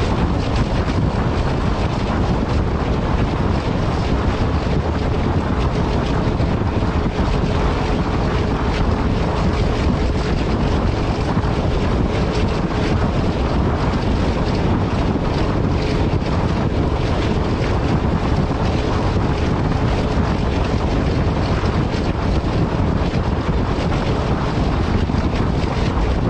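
ALCO diesel locomotive under way, heard from aboard, a steady rumble and rush with heavy wind noise on the microphone. A faint steady tone sounds through the middle stretch.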